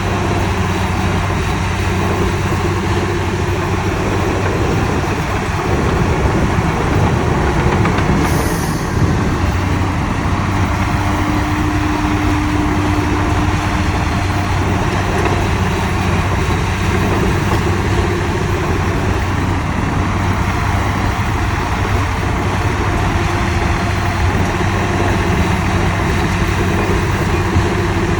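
Heavy diesel earthmoving machinery running steadily under load, with a brief hiss about eight seconds in.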